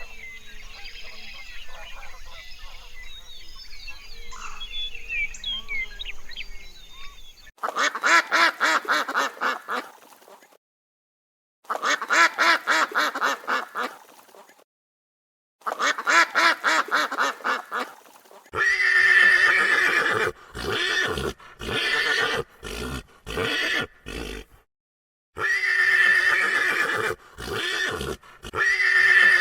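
Faint bird chirping, then from about a third of the way in a series of loud, pulsing, whinny-like animal calls repeated in bouts with sudden silent breaks between them.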